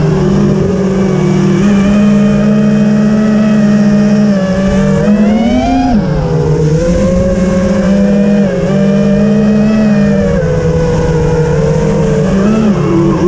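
A vehicle engine running under way, its pitch holding mostly steady but rising briefly about five seconds in and dropping back, with smaller swells near the end. Wind buffets the camera microphone underneath as a rough low rumble.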